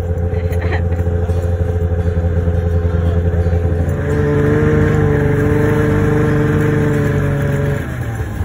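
Small motor vehicle engine running steadily while towing sleds over snow, speeding up about four seconds in and easing off near the end.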